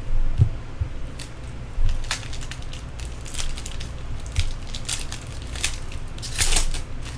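Crinkling and crackling of foil trading-card pack wrappers and cards being handled, in irregular bursts with the busiest stretch near the end.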